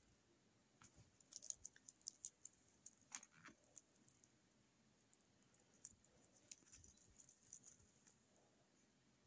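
Faint small clicks and clinks of a keychain's metal split ring and clasp being handled, in two spells of scattered taps.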